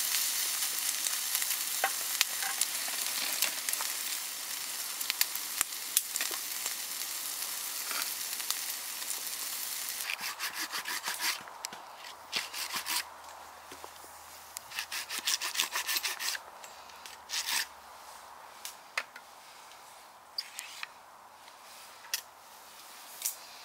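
Campfire crackling under a steady sizzle, food frying in a pan over the fire. About ten seconds in this gives way to a hand saw cutting through a log in several runs of rasping strokes, with a few scattered knocks near the end.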